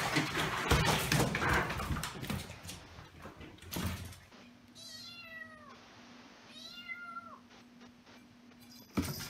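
Water splashing and scrabbling as a cat flounders in a half-filled bathtub and climbs out, with a knock near the end of it. Then a kitten meows twice, about two seconds apart, each meow under a second long.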